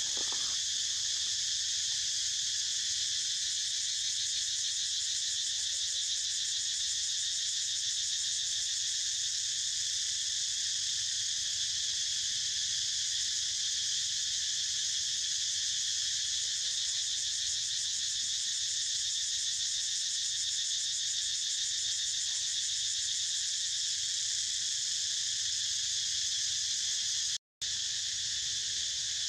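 A steady, high-pitched chorus of insects buzzing, which drops out for a moment near the end.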